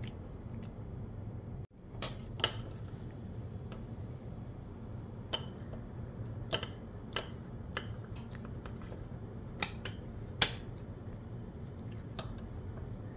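A knife blade clicking and knocking against a stone countertop while a stack of flour tortillas is cut into triangles, a dozen or so sharp, irregular clicks, over a steady low hum.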